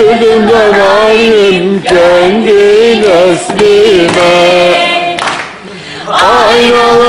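A group of voices, mostly women's, singing a folk song together, with long held notes that bend up and down in pitch. The singing breaks off briefly about five seconds in, then starts the next phrase.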